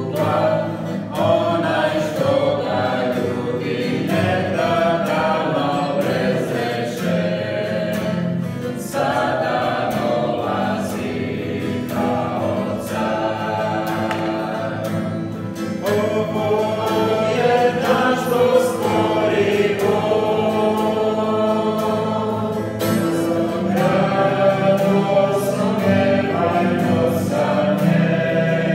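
A man and a woman singing a Christian worship song, accompanied by a strummed acoustic guitar.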